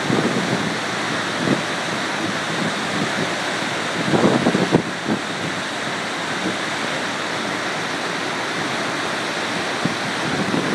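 Whitewater rushing steadily through rock arch rapids on a river in high flood-swollen water. A brief louder rumble comes about four seconds in.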